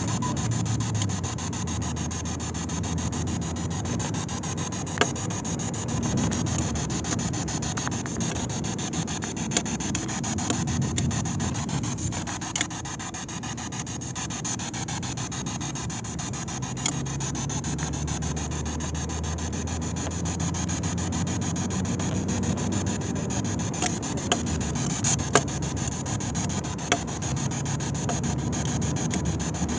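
Steady hiss over a low, slowly shifting rumble inside a car on the move, with a few faint clicks.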